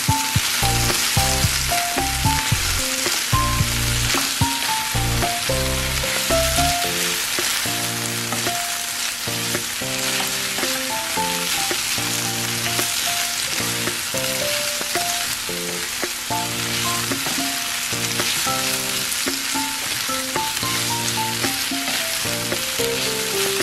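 Beef strips sizzling steadily in a hot frying pan as they are stirred and turned with wooden utensils. Background music plays under the sizzle, with its bass dropping out about seven seconds in.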